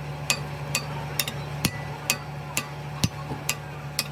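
Hammer blows on metal, struck steadily about twice a second, each with a short ring, over a steady low hum.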